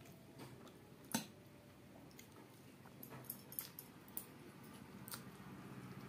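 Hand-eating sounds: fingers mixing rice on a steel plate and mouth smacks while chewing, heard as scattered soft clicks and smacks. The sharpest comes about a second in, and a small cluster falls a little past the middle.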